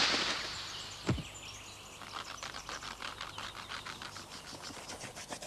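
A gusting wind effect dies away, then birds chirp in a fast, steady twitter.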